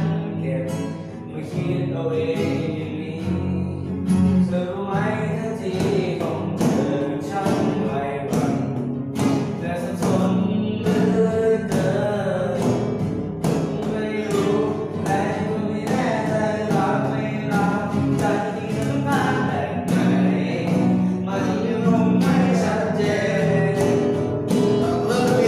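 A young man singing a Thai song to a strummed acoustic guitar, the guitar keeping a steady strumming rhythm under the voice.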